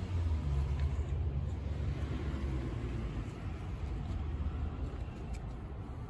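A low, steady rumble, with a few faint soft ticks over it.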